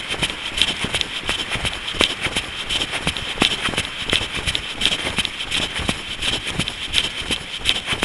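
A runner's footsteps on a path, an even rhythm of footfalls about three a second.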